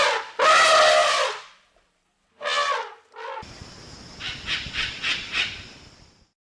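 Loud animal calls with a brassy, trumpet-like tone: two long calls, then a shorter one about two and a half seconds in. From about three and a half seconds a noisier call follows with a thin steady high whistle and several pulses, fading out near the end.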